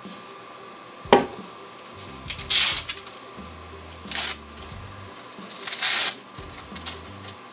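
Battery strap being fastened on a multirotor frame: a sharp click about a second in, then three short ripping sounds of hook-and-loop strap being pulled apart and pressed down.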